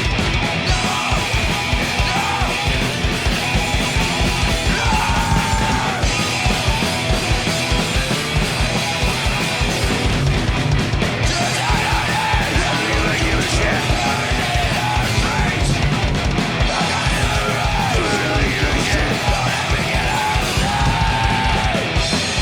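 A live punk rock band playing loud and fast: a steady, rapid drum beat under distorted guitars, with shouted vocals coming in at several points.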